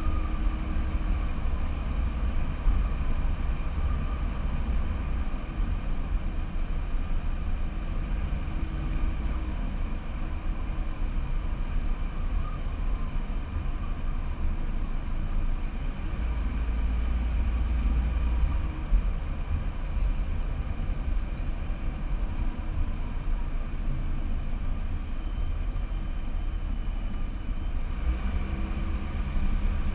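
Car driving slowly and steadily, a continuous low engine and road rumble picked up by a camera mounted on the car.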